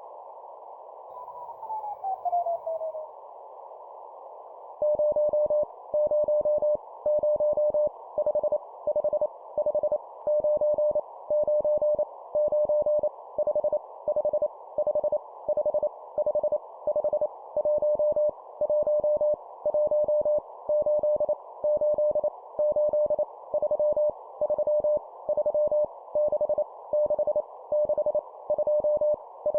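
Morse code (CW) at 25 words per minute sending random numbers, as a single steady tone keyed on and off over a band of hiss. Near the start a whistle glides down in pitch, and the keying begins about five seconds in.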